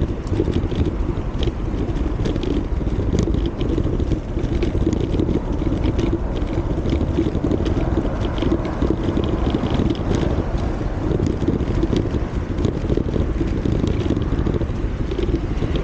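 Steady rumble of bicycle tyres rolling over a paved and paving-stone surface, mixed with wind noise on the microphone, with small clicks and rattles scattered throughout.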